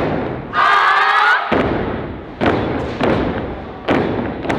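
Heavy stomps of a step team on a stage, each hit ringing out and fading, coming about every one and a half seconds. About half a second in, a high, pitched call lasts about a second.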